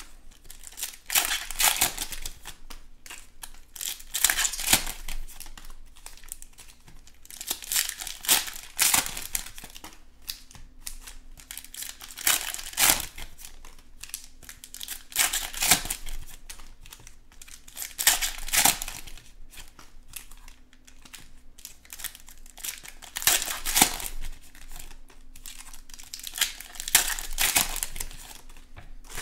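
Foil trading-card packs being torn open and their wrappers crinkled by hand, in repeated crackling bursts every few seconds.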